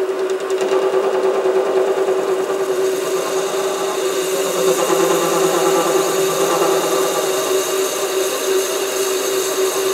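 SC2 mini lathe running with a steady whine while a parting tool is fed by hand into a 28 mm aluminium rod. The hiss of the cut grows louder about three seconds in.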